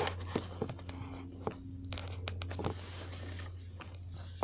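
Scraping and sharp clicks from a camera being handled and adjusted on its makeshift mount, over a steady low hum.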